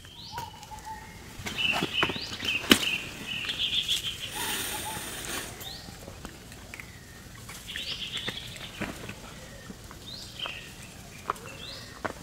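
Short high chirping calls repeating every second or two, some rising and some falling in pitch. Scattered sharp clicks and a burst of rustling about five seconds in are mixed in.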